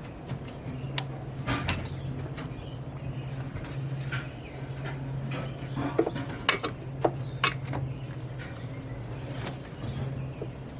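Hand tools at work on the pipework of a Ford Ranger's engine bay while the split intercooler pipe is taken off: scattered metallic clicks and knocks, over a steady low hum.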